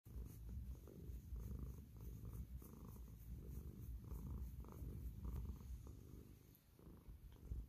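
Domestic cat purring contentedly while being scratched on the cheek and chin: a low, steady purr that dips briefly near the end.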